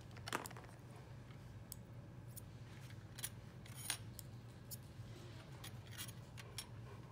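Faint, scattered light clicks of glass microscope slides being handled and touched together as lymph node aspirate is spread into smears, over a low steady hum.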